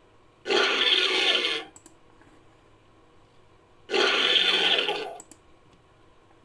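Two harsh, noisy calls from a Masiakasaurus dinosaur sound effect, each a little over a second long. The second starts about three and a half seconds after the first, and a faint click follows each.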